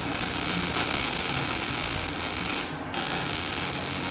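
MIG welding arc crackling steadily as a beginner runs a bead along the joint, breaking off for a moment about three seconds in and then starting again.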